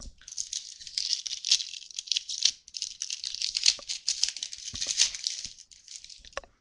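Foil wrapper of a football trading card pack being torn open and crinkled by hand. A dense crackling lasts about five seconds, with a brief break near the middle.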